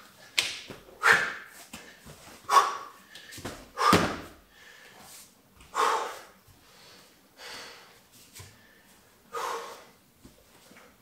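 A man breathing hard from sandbag lunges: loud, forceful exhales every one to two seconds. About four seconds in comes a dull thump as the Bulgarian bag is put down on the mat.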